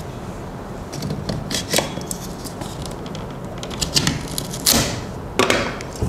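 Small plastic and metal clicks and handling rattles as a fiber optic LC connector and an SFP transceiver module are unplugged from a mini fiber media converter. The clicks come singly and irregularly, and the sharpest ones fall in the last second and a half.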